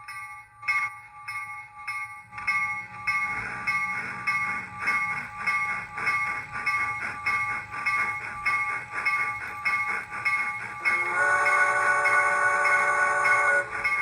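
Digital steam sound from a brass model PRR K4 4-6-2 locomotive: steady, even chuffing, then a long whistle blast from about eleven seconds in that lasts between two and three seconds.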